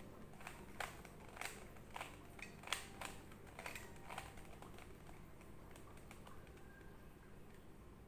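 3x3 Rubik's cube layers being turned by hand: a run of sharp plastic clicks, about two a second, that thins out after about four seconds.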